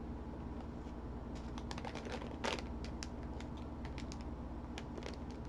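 Scattered light clicks and taps of a plastic candy package being handled, as though someone is struggling to open it, with a sharper click about halfway through, over a steady low hum.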